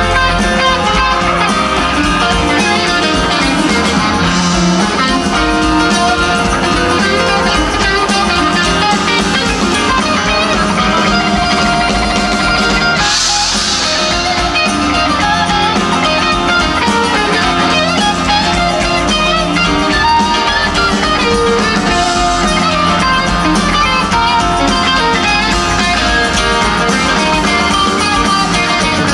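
Live rock band playing an instrumental jam: electric guitar leading over drum kit and keyboards, heard from within the audience.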